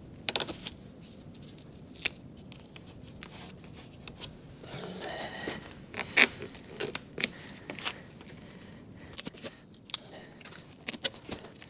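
Scattered crinkles, light taps and rustling of self-adhesive flashing tape being handled and pressed down onto house wrap by hand.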